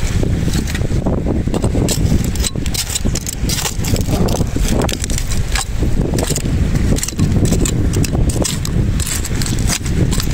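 A small hand trowel scraping and clinking among loose mussel and oyster shells and stones under a barnacle-crusted rock, in many short sharp clicks and rattles. Wind buffets the microphone with a steady low rumble.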